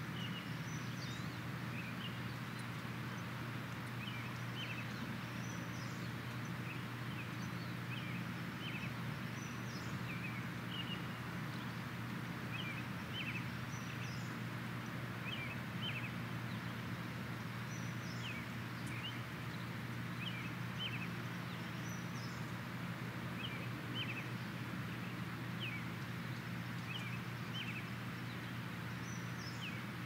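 Birds chirping in the dawn chorus: short chirps every second or two over a steady low hum and background hiss.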